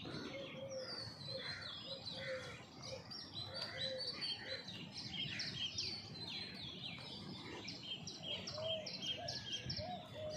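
A chorus of several birds calling at once: many short, quickly repeated high chirps, with a string of lower, rising-and-falling whistled notes through it, over steady background noise.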